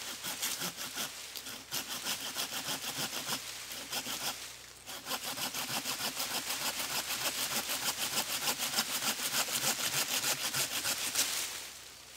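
Hand saw cutting through a thin living tree trunk with quick, even back-and-forth strokes, several a second. There is a short pause about four and a half seconds in. The strokes stop near the end as the trunk is cut through.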